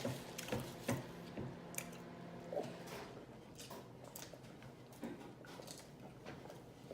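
A person chewing and smacking their lips while eating, heard as soft, irregular clicks.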